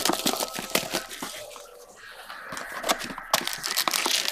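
Plastic shrink wrap being torn and crumpled off a trading-card box: irregular crinkling and crackling, with a quieter stretch in the middle before it picks up again.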